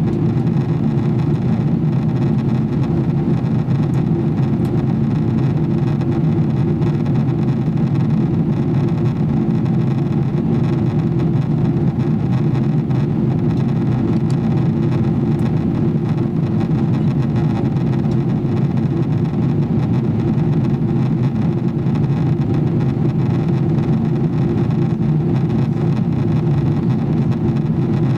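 Steady cabin noise inside a Boeing 777-300ER in flight, the even low rumble of airflow and its GE90 turbofan engines, unchanging throughout.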